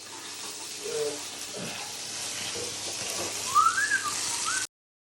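Fish frying in hot oil with a steady sizzle. A brief whistle rises and falls about three and a half seconds in, and the sound cuts off suddenly shortly after.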